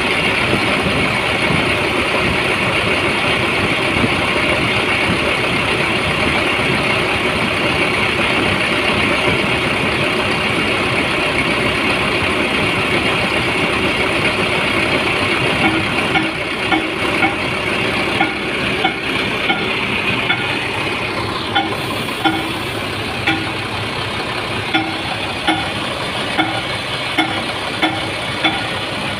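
Rear-mounted diesel engine of an intercity bus running steadily at idle with the engine hatch open, its sound, by the crew's account, back to normal after a repair. Past the middle the running note drops slightly and a string of light knocks comes through, about one or two a second.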